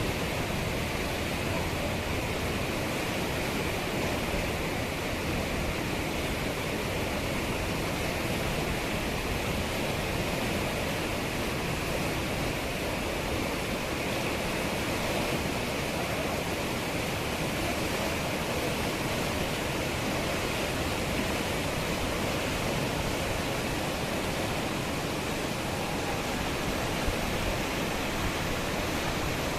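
The Ganges River in monsoon spate, its fast water rushing with a steady, unbroken roar.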